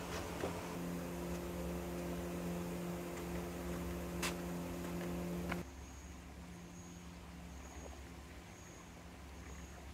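Greenhouse circulation fans running with a steady hum, and a single sharp click about four seconds in. The hum cuts off abruptly about five and a half seconds in, leaving a quieter background with a short high chirp repeating about once a second.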